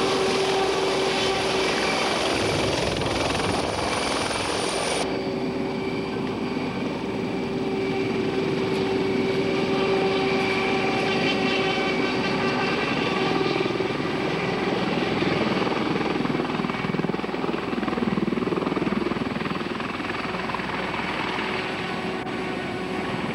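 Sikorsky H-76 Eagle FANTAIL demonstrator helicopter hovering and manoeuvring low, its main rotor and ducted tail fan beating steadily over a constant whine. The sound turns duller about five seconds in.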